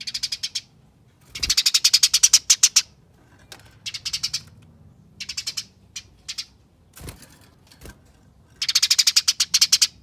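Eurasian tree sparrow giving its rapid, dense fighting chatter: runs of fast high chips, about ten a second, each run lasting from a fraction of a second to over a second. The loudest runs come about two seconds in and near the end.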